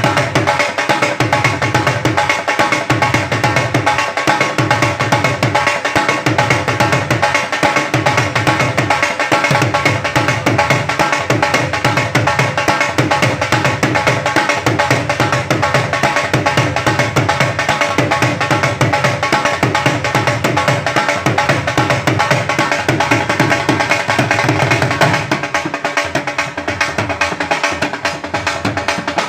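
Music with a steady, driving hand-drum beat under a sustained melody. The low drum beat drops back for a few seconds near the end.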